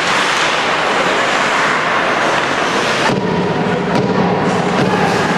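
Crowd noise in an ice hockey arena: a loud, even rush that cuts off abruptly about three seconds in, with arena music carrying on underneath.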